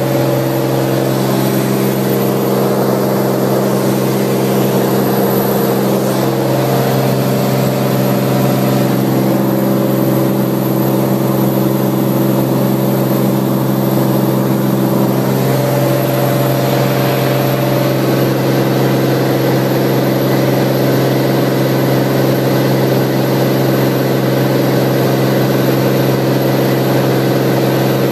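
Cirrus SR20 single-engine piston aircraft's engine and propeller running at a steady drone, with slight shifts in pitch a couple of times.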